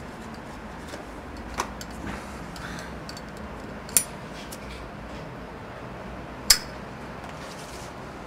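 Small clicks and rustles of a cigarette being taken from its pack, then a sharp click about four seconds in as the cigarette is lit with a lighter. Another sharp click with a brief ring comes about six and a half seconds in, over a steady background hiss.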